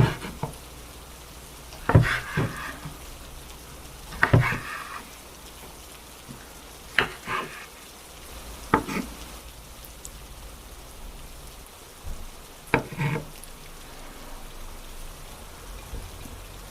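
Kitchen utensils knocking and clinking against cookware or dishes about nine times at irregular intervals, over a steady hiss.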